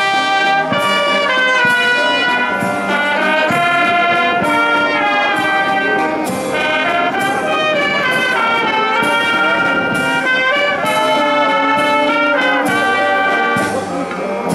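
A military brass band plays, with trumpets, saxophones and low brass sounding together in a loud, steady tune.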